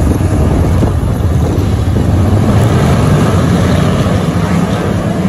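A field of dirt-track limited modified race cars running together in a pack, their V8 engines a loud, steady drone.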